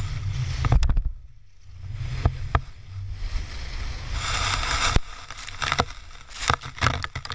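Inflatable float sliding fast down a snowy slope: a low rumble from the ride and from wind on the microphone, with scattered knocks and a hiss of spraying snow about four seconds in.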